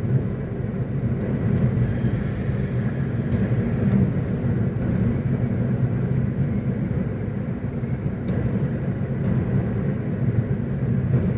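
Steady low rumble of a moving car, the road and engine noise heard from inside the cabin, with a few faint clicks.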